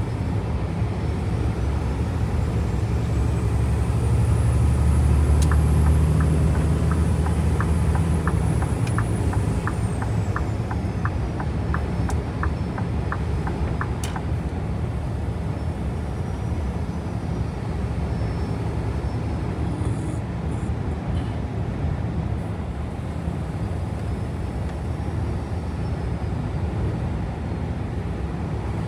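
Scania V8 truck engine droning steadily in the cab at highway speed over wet road noise, a little louder about five seconds in. For several seconds in the first half, a run of regular ticks about two or three a second sounds over it.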